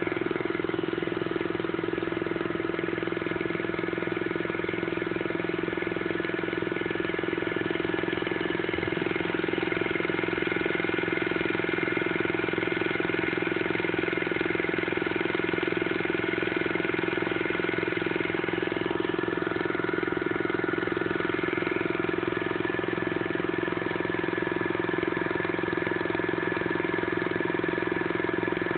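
Antique belt-driven electric air pump running steadily, supplying air to a small single-cylinder model air engine with a flywheel, which runs on it. A steady mechanical hum with a constant running rhythm.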